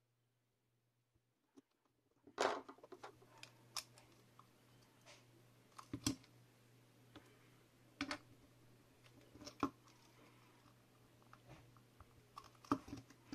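Scattered clicks and taps of small plastic and metal parts being handled and pressed together as an LED fidget spinner's case is assembled, starting after about two seconds of near silence, over a faint low hum.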